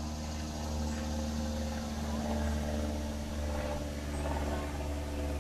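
Steady low mechanical hum of a running motor or engine, even and unchanging.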